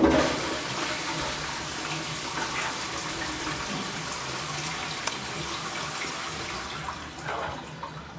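Toilet flushing: water rushes in with a sudden start and runs steadily for several seconds, easing off near the end.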